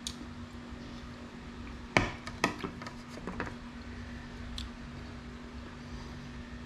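Metal fork clinking and scraping against a ceramic plate while cutting a tuna steak: a sharp clink about two seconds in, another half a second later, then a few lighter taps.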